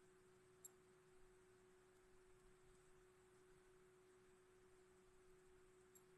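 Near silence with a faint steady low hum. Two faint, sharp high clicks come about half a second in and near the end.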